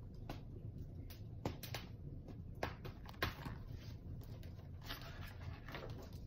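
Paper handling: a letter being drawn out of an envelope in a picture book, heard as faint rustling with scattered light clicks and taps, busier in the second half.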